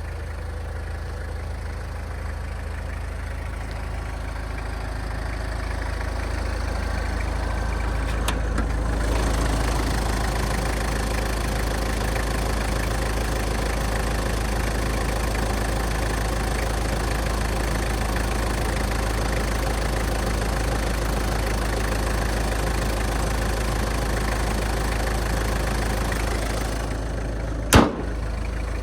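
A Toyota Land Cruiser Prado LJ71G's four-cylinder turbodiesel idling steadily, with a diesel clatter. About eight seconds in the sound grows fuller and louder. Near the end there is one sharp click, and the sound falls back a little.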